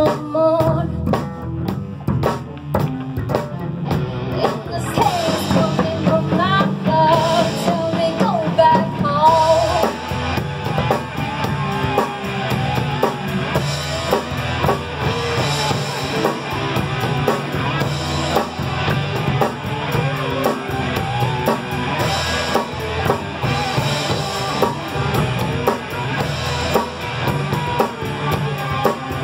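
Rock music with a full drum kit and guitar, and an electric bass guitar played along with it.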